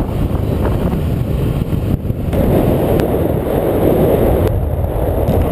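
Wind buffeting the camera's microphone in paraglider flight: a loud, steady rush with no voice, growing louder about two seconds in.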